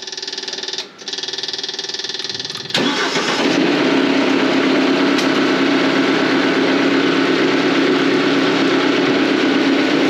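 Big diesel engine of a Diamond Products Core Cut concrete saw running steadily, then suddenly louder about three seconds in as it is throttled up, holding a steady higher speed.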